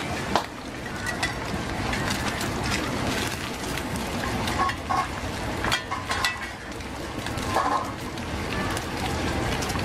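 Oysters and egg batter sizzling in a wide pan of hot oil, with metal spatulas scraping and clinking against the pan several times, mostly in the second half.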